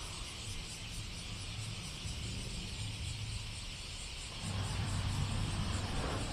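Low rumble of an approaching train, rising in level about four and a half seconds in, over a steady high hiss.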